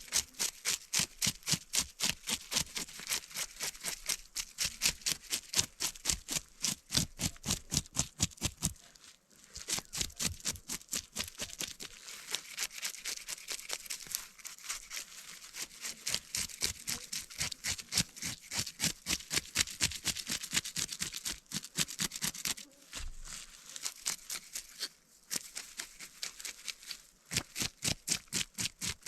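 Knife scraping the scales off a pike in quick, regular strokes, about four a second, in runs broken by short pauses.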